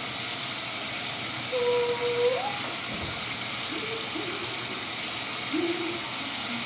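Water spraying steadily from a grooming tub's hand sprayer onto a standard poodle's coat during its bath. A few short vocal sounds rise over it; the first is held about a second and rises at its end.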